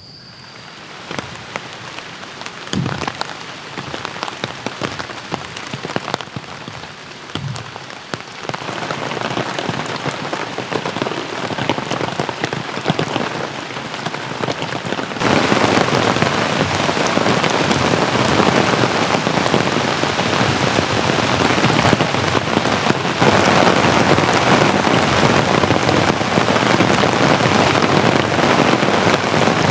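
Heavy rain falling, with many separate drops striking close by. It grows louder in steps and jumps up sharply about halfway through, after which it holds steady and dense.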